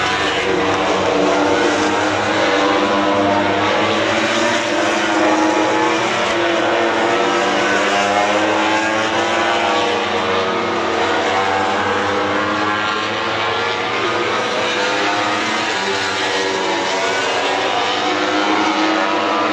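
MotoGP racing motorcycles passing one after another at speed, several engine notes overlapping and rising and falling in pitch as they go by.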